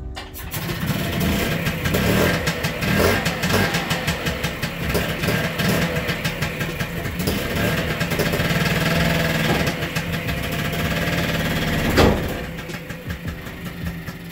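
Piaggio Ape TM 703 engine starting and running on its first test after a new cylinder and piston were fitted to cure a seized piston; its level rises and falls unevenly. A single sharp bang comes about twelve seconds in, the loudest moment, and the engine runs quieter after it.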